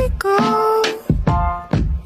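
Background music: a Japanese pop song with a melodic line over a beat, with low drum thumps about once a second.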